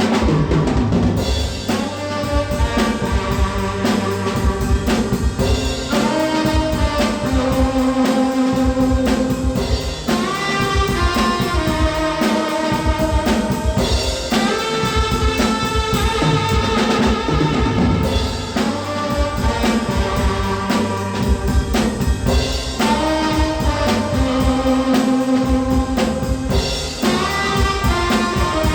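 Tenor saxophone playing a melody in long held notes over a drum kit keeping a steady beat.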